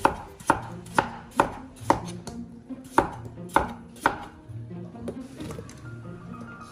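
Chinese cleaver chopping peeled potatoes into chunks on a wooden cutting board: about eight sharp chops, roughly two a second, stopping about four seconds in.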